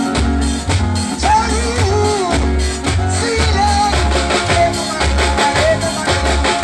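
Jamaican nine-night band music played loud through truck-mounted speakers: a pulsing deep bass line, steady drums and a singing voice.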